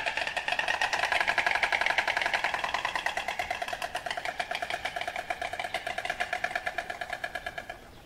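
Marabou stork clattering its bill: a rapid, even rattle of clacks that weakens in the second half and stops shortly before the end.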